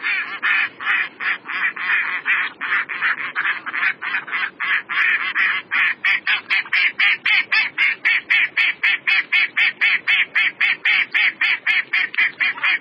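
Mallard quacking in a rapid, unbroken series, about four to five quacks a second.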